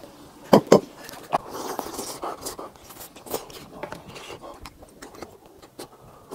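Close-miked mukbang eating sounds: a man chewing and slurping stringy melted mozzarella, with two sharp wet mouth sounds about half a second in as the loudest. A wooden spoon scrapes against the pot in between.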